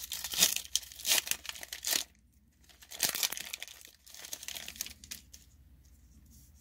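Foil wrapper of a Pokémon Sword and Shield booster pack crinkling and tearing as it is pulled open, in bursts. A short pause comes about two seconds in, then more crinkling, and lighter rustles fade out about five seconds in as the cards come free.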